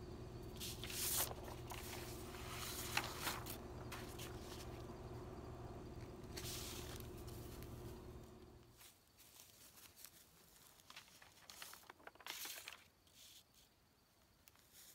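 Sheets of paper handled and rustling, with scattered crinkles. A steady low hum runs beneath them and cuts off a little past halfway through.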